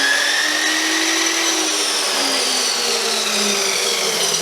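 Chicago Electric chop saw running free at its full stock speed, with no speed controller and no cut: a loud motor whine that reaches top pitch about a second in, then slowly drops in pitch.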